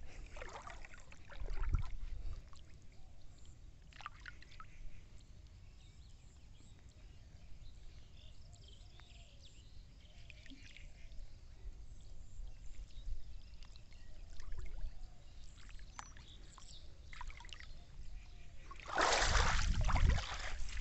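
Outdoor ambience of faint trickling and sloshing floodwater over a steady low noise on the microphone, with a few small ticks. A loud burst of noise, about two seconds long, comes near the end.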